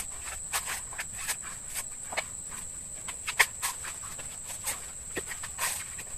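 Irregular sharp knocks and chops of a blade striking coconut shells as coconuts are split open by hand, a few a second and uneven, the loudest about halfway through. A steady high insect drone runs under them.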